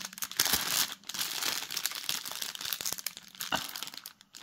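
Clear plastic packaging stuffed with small bags of diamond-painting drills crinkling as it is handled and turned over in the hands, in uneven spurts with short pauses about a second in and near the end.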